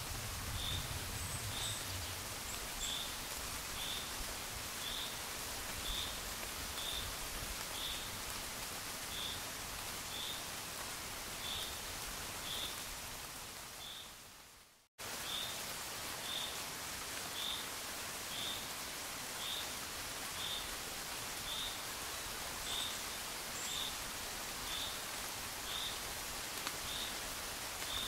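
Steady gentle rain, an even hiss, with a short high chirp repeating about once a second. Around the middle the sound fades away to silence and then cuts straight back in.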